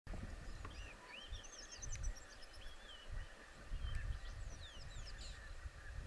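Small songbirds singing and calling: quick whistled notes that slide up and down, with a rapid high trill near the second mark and a run of falling notes a little after the middle, over an uneven low rumble of wind on the microphone.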